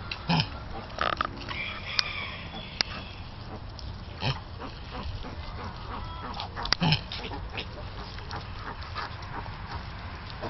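Miniature potbelly piglets nursing at a sow, jostling for teats with short scattered squeals and squeaks, and a few low grunts.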